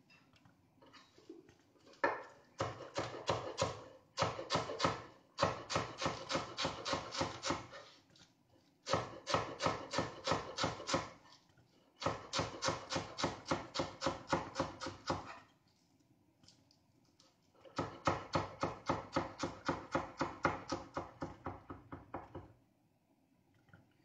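Knife chopping fresh parsley on a wooden cutting board: quick, even strokes about five a second, in six runs of one to four seconds with short pauses between.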